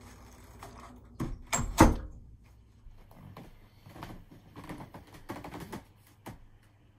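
Two or three heavy thumps at a wooden door, close together, followed by a scatter of lighter clicks and taps.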